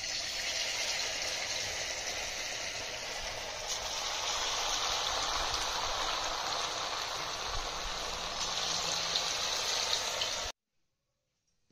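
Semolina and flattened-rice fritters deep-frying in hot vegetable oil in a wok: a loud, steady sizzle of bubbling oil. It cuts off suddenly near the end.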